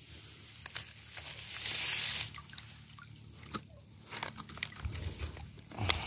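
Rustling and light clicking from handling a scarecrow's cloth and rice stalks, with a short, louder brushing rustle about two seconds in. Low rumbling handling noise builds near the end.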